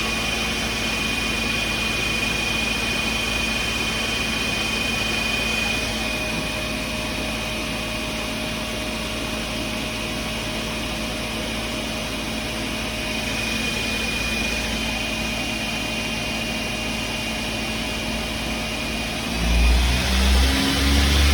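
Daewoo Puma 200M CNC lathe spindle running at high speed, commanded to 4,500 RPM: a steady mechanical whine with a few high tones that shift a few seconds in. Near the end a louder low thumping rumble comes in.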